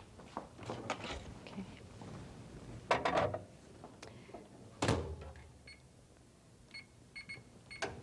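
Knocks and clatter as a glass batter bowl is set back inside a microwave oven and the door shut, with two louder knocks around three and five seconds in. Then a run of about five short, high beeps from the microwave's touch keypad as the cooking time is entered.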